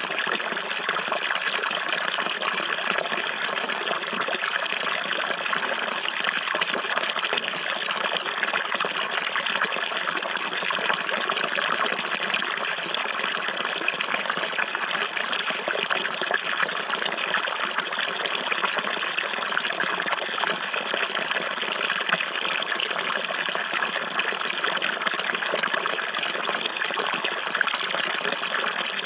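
Running water flowing steadily, an even trickling rush that never breaks or changes.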